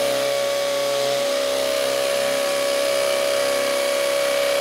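DeWalt brushless cordless hammer drill boring into a concrete block with a masonry bit, its motor running steadily under load with a high whine and a dense hammering rattle.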